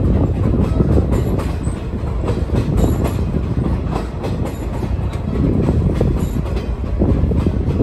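Former Union Pacific caboose rolling along the track: a steady, loud rumble of its wheels and running gear, with scattered clicks as the wheels pass over the rails.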